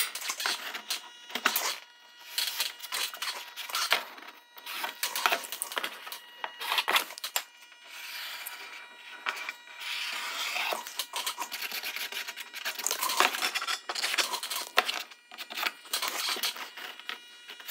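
Sharpie marker drawing on pressed paper: a run of irregular scratchy strokes, short ones mixed with longer drawn lines of a second or more.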